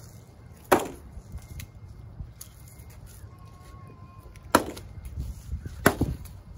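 Paint-filled eggshells smacking against a paint board, three sharp hits: one about a second in, then two more about a second and a half apart near the end.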